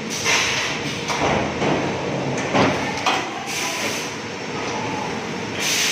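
A 50 kW high-frequency PVC welding machine at work: a steady machine hum broken by about five short hissing bursts.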